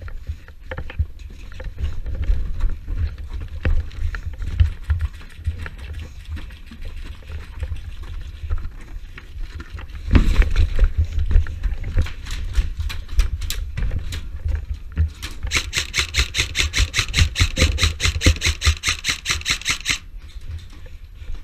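Airsoft gun firing on full auto: a rapid, even rattle of about eight shots a second lasting some five seconds in the second half. Around it are low knocks and rustling, with a louder jolt about ten seconds in.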